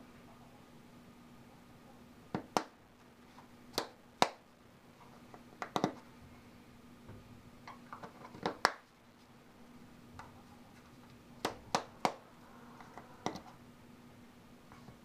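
Sharp clicks and taps of a Copenhagen Wintergreen dip tin being handled and its lid worked with the fingers, about a dozen, mostly in pairs a fraction of a second apart, over a faint steady hum.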